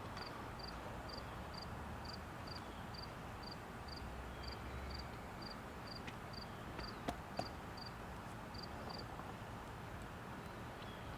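An insect chirping steadily, short high chirps about two a second, stopping about nine seconds in, over a faint steady background hiss. Two light clicks about seven seconds in.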